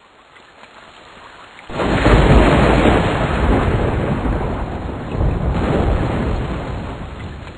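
Rain falling, then about two seconds in a loud crack of thunder that rumbles on, swells again a little past five seconds and slowly fades back into the rain.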